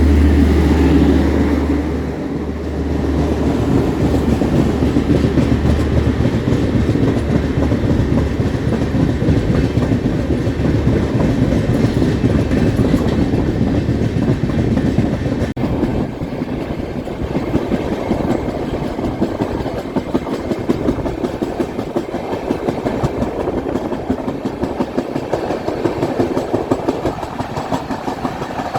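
Express passenger train running at speed, heard from aboard: a steady rumble and rattle with wheels clacking over the rail joints. A low steady hum runs underneath for the first several seconds and then stops.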